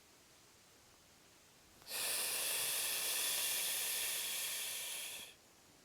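A person breathing out in one long, steady exhale, an airy hiss that starts about two seconds in, lasts about three and a half seconds and stops abruptly.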